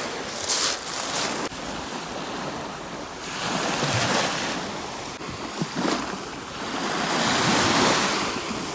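A few crunching footsteps on a shell-covered beach, then small waves washing up onto the sand. The wash swells twice and falls back.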